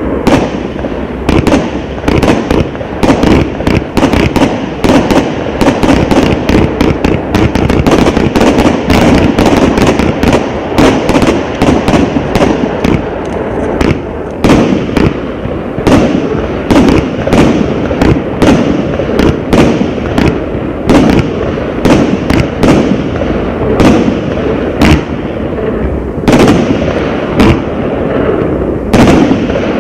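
Son of Zeus 108-shot firework cake firing: a rapid, continuous run of sharp bangs and cracks, several a second, over a steady rumble.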